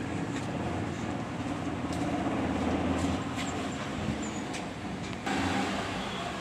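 Steady street and traffic noise, with a few faint clicks and a sudden change in the background about five seconds in.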